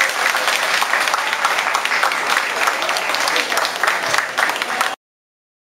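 Audience applauding, a dense steady clatter of many hands that stops abruptly near the end.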